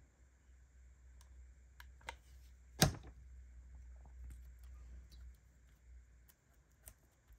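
Light clicks and taps of paper-craft materials and tools being handled on a work table, with one sharp click a little under three seconds in, over a faint low hum.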